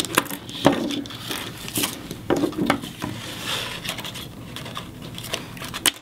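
Clear adhesive tape being pulled from its roll and torn, with cardstock rustling and a string of small clicks and knocks from handling the pieces.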